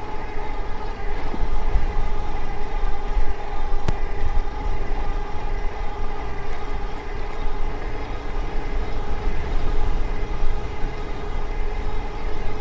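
Ariel Rider Rideal e-bike running at a steady 25 mph under full pedal assist (PAS 5), giving a constant whine from the drivetrain and tyres. Wind rumbles on the microphone underneath.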